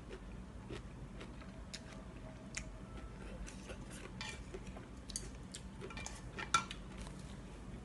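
Wooden chopsticks clicking and scraping against a speckled enamel bowl as noodles are stirred and lifted, with quiet eating sounds between. The taps are light and irregular; the sharpest comes about six and a half seconds in.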